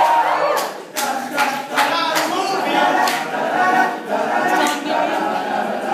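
Men's a cappella group singing, with hand claps sounding every half second or so.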